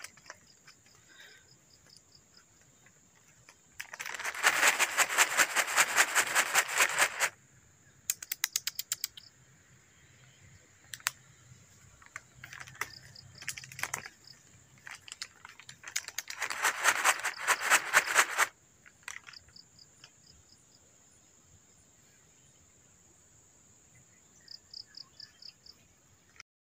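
Insects calling: a steady high-pitched whine throughout, with two loud runs of rapid, even clicking, one about three seconds long and one about two seconds long, and a few short trains of high pips.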